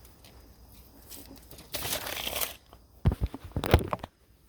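Handling noises: a short rustle about two seconds in, then a cluster of knocks near the end.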